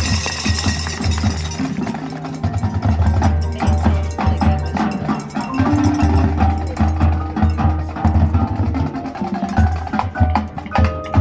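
Percussion music: a rhythm of heavy low drum hits with mallet keyboards such as marimba and bells ringing over it.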